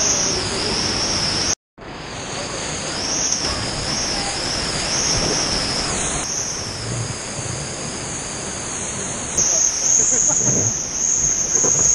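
Steady rushing of a swollen mountain river through a rock canyon, with a brief dropout about a second and a half in.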